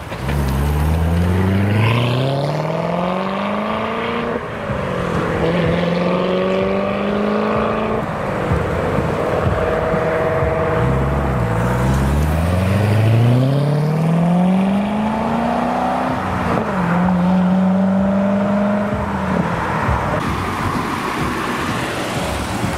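Chevrolet Corvette Z06 V8 accelerating hard away through the gears: the revs climb for a few seconds, drop at an upshift and hold, then ease off. It pulls hard a second time, climbing, shifting and holding again, with traffic noise beneath.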